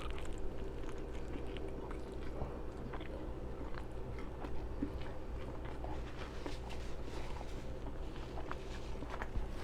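A person chewing a pastrami burger with open-mouth smacking: a steady run of small clicks and smacks.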